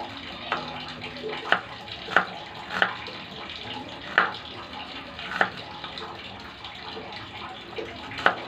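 Kitchen knife slicing through a red onion and striking the cutting surface in irregular chops, about seven sharp knocks, over a steady hiss.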